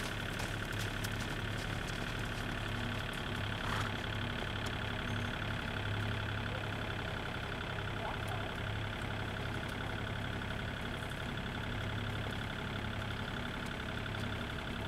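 Steady engine-like hum with a low drone, running without a break.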